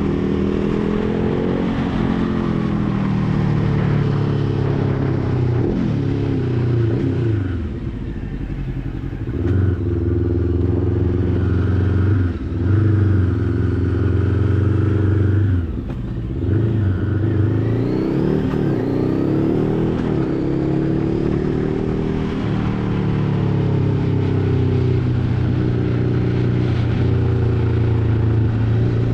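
Motorcycle engine running during a ride, its pitch rising and falling as the throttle opens and closes. There are brief dips around a third and half of the way in, like gear changes.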